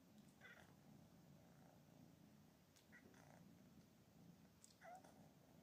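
Very faint purring of British Shorthair kittens, a steady low rumble, with three faint short high chirps spread through it.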